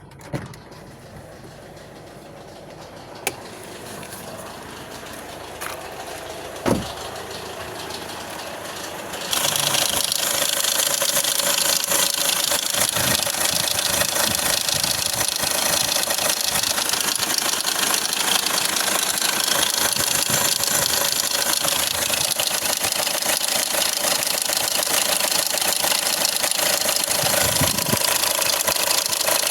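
Hyundai Accent CRDi diesel engine idling with a rattling, ticking noise, which the owner suspects is a loose timing chain. The sound is quieter at first, with a few sharp clicks. About nine seconds in it suddenly becomes much louder and stays steady.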